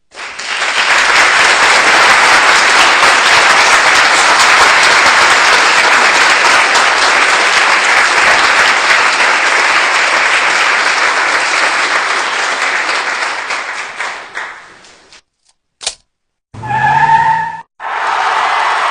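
Applause from a large crowd, a dense steady clatter of clapping that fades out after about fifteen seconds. A sharp click and a short pitched sound follow, then the applause starts again near the end.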